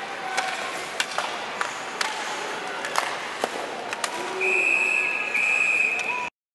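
Ice hockey arena: crowd noise with sharp clacks of sticks and puck on the ice and boards, then a referee's whistle blows two blasts, about four and a half seconds in, stopping play as the goalie covers the puck. The sound cuts off suddenly near the end.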